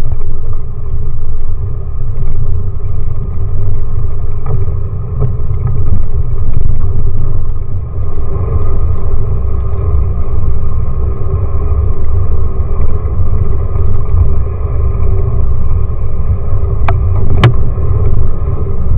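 Nissan Terrano I 4x4 driving slowly over a bumpy, muddy track, with a steady low engine and road rumble. Two sharp clicks or knocks come near the end.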